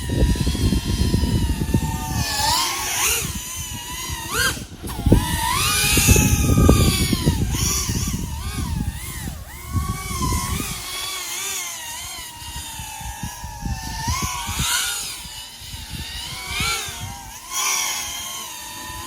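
3.5-inch FPV quadcopter's four small brushless motors and propellers whining, the pitch repeatedly rising and falling as the throttle changes. A heavy low rumble sits under it for the first half and then drops away.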